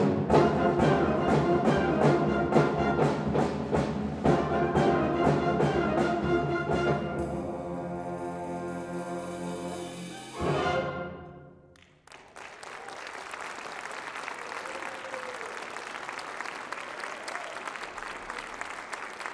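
Symphonic wind band playing the closing bars of a piece: full brass and woodwinds over a steady beat of percussion strikes, then a held chord and a final loud accented chord that dies away about twelve seconds in. Audience applause follows to the end.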